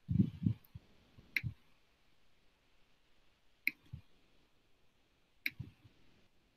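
Handling noise from a device picked up over a video-call microphone: a few low bumps at the start, then three sharp clicks, each followed by a dull knock, about two seconds apart.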